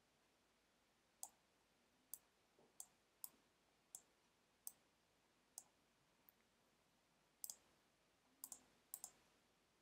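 Computer mouse clicking as points of a mask path are placed with the pen tool: single sharp clicks about one a second, then a few quick double clicks near the end, over near silence.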